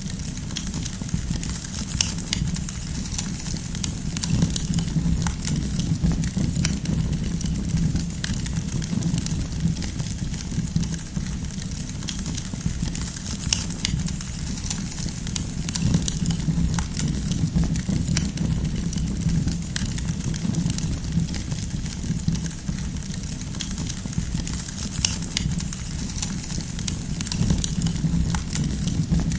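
Wood campfire burning, with a steady low rumble under frequent small crackles and pops.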